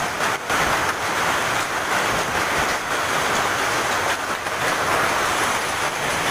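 Hail and heavy rain coming down hard in a dense, steady rush of noise.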